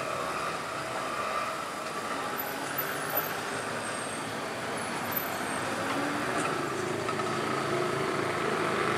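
Steady background noise of motor-vehicle traffic, growing slightly louder near the end.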